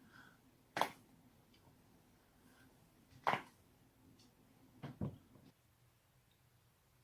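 Neck joints cracking: a sharp crack about a second in, another a few seconds later, then a quick double crack.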